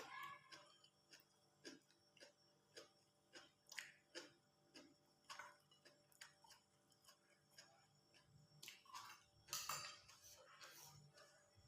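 Faint close-up chewing, with short mouth clicks at about two a second. A louder crunch-like noise comes about nine to ten seconds in.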